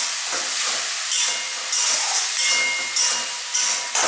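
Onion, garlic, ginger, tomato paste and spices sizzling in hot oil in a pan, the hiss swelling about once a second as the masala is stirred.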